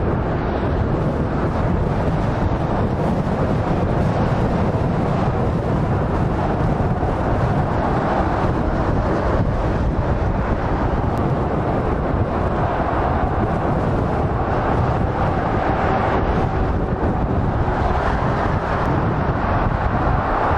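Steady motorway traffic noise: lorries and cars passing at speed, their tyres and engines blending into one continuous sound, with wind buffeting the microphone.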